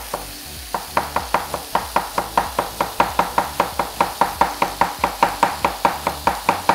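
A kitchen knife rapidly chopping lettuce against a cutting board, a quick even run of about five strokes a second that settles into its steady rhythm about a second in.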